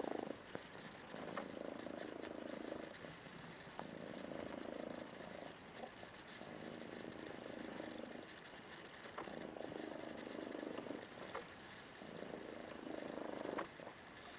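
Bengal kitten purring, in stretches of about a second and a half with short breaks at each breath, with a few faint clicks.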